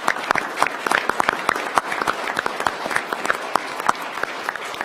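Audience applauding: many people clapping at once, the claps dense and irregular.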